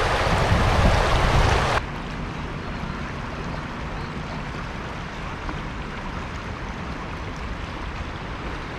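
Shallow river riffle rushing over rocks, loud for the first couple of seconds, then cutting off suddenly to a quieter, steady wash of flowing river water.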